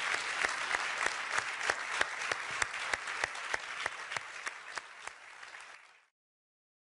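Audience applauding in an auditorium, the clapping thinning and fading out near the end.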